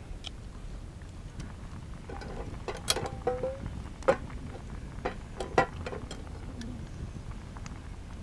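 Metal camp cookware being handled at a campfire: a few sharp knocks and clicks at irregular intervals, with a short squeaky scrape about three seconds in.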